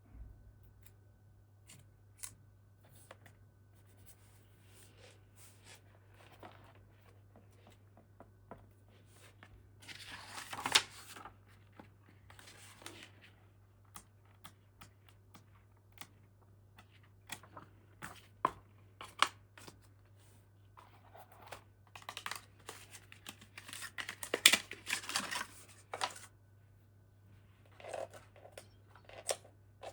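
Toy packaging being handled and opened by hand: scattered small clicks and taps, with longer bursts of tearing and rustling about a third of the way in and again toward the end.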